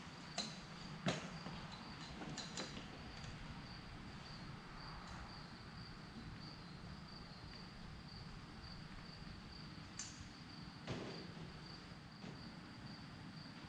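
A few knocks and taps as a roof-mounted sun visor is lifted onto a pickup's cab roof and set in place: the sharpest about a second in, with another near eleven seconds. Underneath lies a faint, steady, high-pitched pulsing tone.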